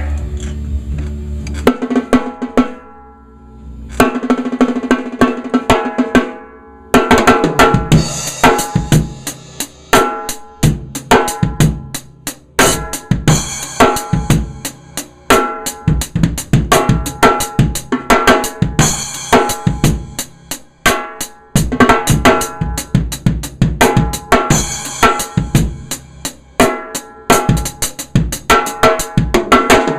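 A ddrum Journeyman 13x7 snare drum, tuned about as high as it goes with the snares off and no dampening, struck with sticks so the head rings with an open, pitched tone. There are a few scattered hits with short pauses at first, then from about seven seconds a continuous busy beat with bass drum and cymbals.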